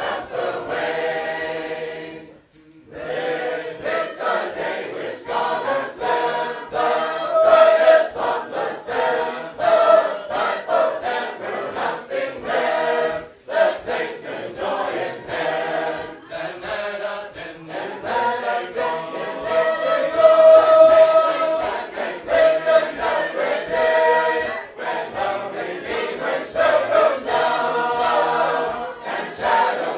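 Sacred Harp shape-note choir singing in four parts, unaccompanied, with a brief break in the singing about two and a half seconds in.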